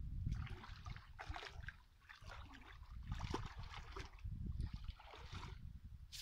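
Muddy pond water splashing and sloshing as a man wades thigh-deep and drags a cast net through it, in irregular splashes about once a second over a low rumble.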